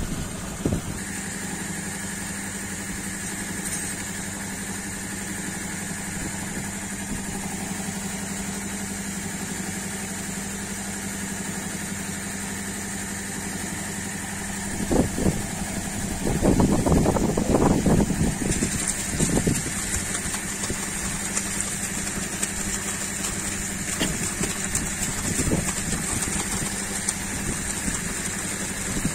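Air compressor driving a compressor-based (air-lift) borewell pump, running with a steady hum. About halfway through there is a louder, uneven surge lasting a few seconds. After that a steady hiss grows stronger as water and air discharge from the outlet pipe.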